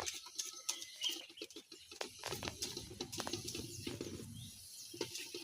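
Scattered light clicks and knocks, with a brief bird chirp about half a second in and a low rumble from about two seconds in to nearly five.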